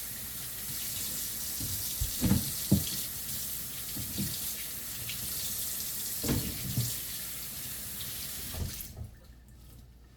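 Kitchen tap running water into a sink, with a few light knocks about two and six seconds in; the water is shut off near the end.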